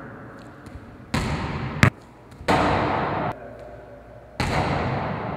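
A basketball bangs sharply once, about two seconds in, in an echoing gym, amid stretches of loud hiss that cut in and out abruptly.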